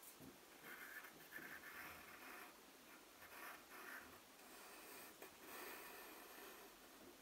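Faint scratching of a pencil drawing on a sheet of paper, in several short strokes during the first four seconds.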